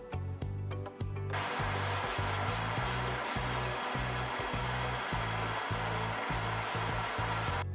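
A steady blast of air, starting about a second in and cutting off just before the end, blowing dust out of a laptop's cooling fan and heatsink. Background music with a steady beat plays underneath.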